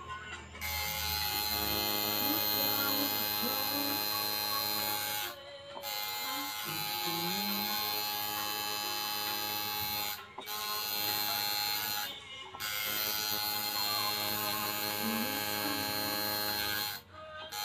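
Electric tattoo machine buzzing steadily as it works on skin, running in stretches of a few seconds with brief stops between them.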